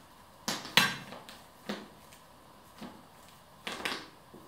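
Items being handled in and out of a leather tote bag: a series of short, sharp knocks and clicks, the loudest just under a second in.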